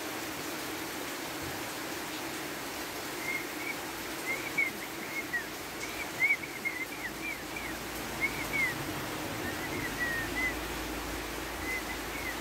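Steady rain hiss, with a bird giving short high chirps over it in scattered runs from about three seconds in to near the end.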